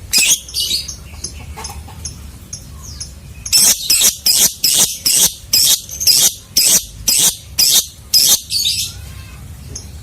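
Lovebird calling with shrill, high-pitched chirps: a short burst near the start, then a long run of about a dozen rapid chirps, about two a second, that stops a second before the end. A faint steady low hum lies underneath.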